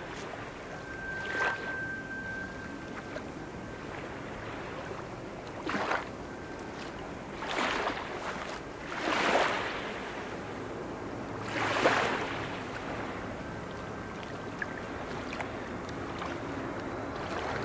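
Wind gusting across the microphone in several short bursts, over the steady distant sound of an Airbus A330-300 airliner's engines on final approach, which grows louder near the end.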